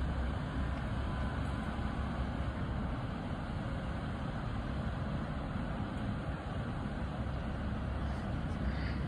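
Class 156 Sprinter diesel multiple unit standing with its underfloor Cummins NT855 diesel engines idling steadily.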